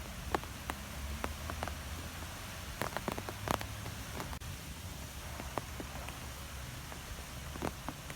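Wind blowing in trees: a steady hiss over a low rumble, with scattered light ticks and taps.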